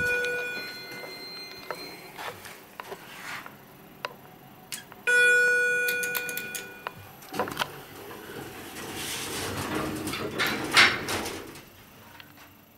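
Elevator chime dinging and fading twice, at the very start and again about five seconds in. Then the car's sliding doors close with a rumble and a sharp knock near the end, on a Westinghouse elevator modernized by Schindler.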